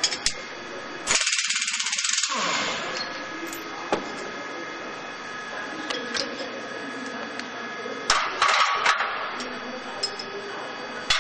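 Pneumatic impact wrench hammering on a bolt of a shredder's knife bar: two bursts of rapid blows, the first about a second long starting about a second in, the second shorter and about eight seconds in, over a steady background hum.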